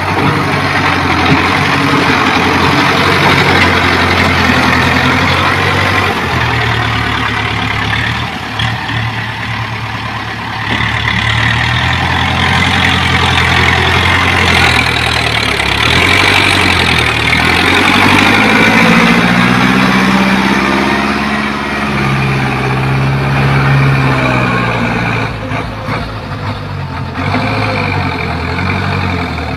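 Ford farm tractor's diesel engine running under load while it works the ground, its engine speed rising and falling several times.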